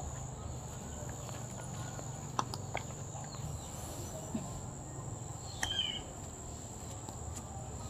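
Insects shrilling in one steady high tone over a low rumble of outdoor background noise. A few light clicks or knocks come through, and a short chirp sounds about six seconds in.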